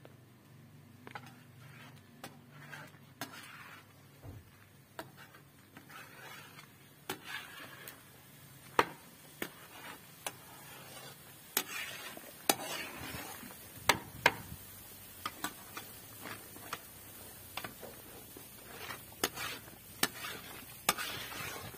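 A spoon stirring a pot of tomato paste, with irregular scraping and sharp metal clinks against the pot.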